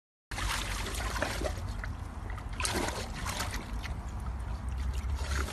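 A pug splashing and sloshing water as it stands in a shallow inflatable paddling pool, with irregular small splashes over a steady low rumble; the sound starts abruptly a moment in.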